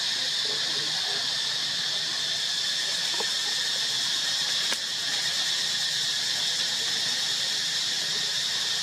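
Steady high-pitched hiss, with a single faint click a little past halfway.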